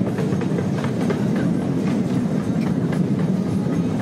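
Small tourist train running along its track, heard from on board: a steady rumble of the cars rolling, with faint scattered clicks from the wheels and track.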